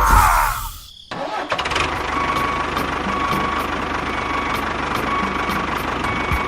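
A brief falling squeal cuts off about a second in, then a small engine runs steadily at idle with a fast, even firing pulse and a faint thin whine.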